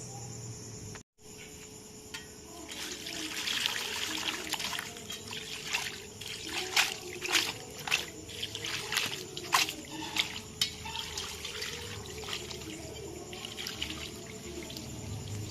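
Water trickling and pouring, starting about three seconds in, with a series of sharp clicks and knocks of things being handled.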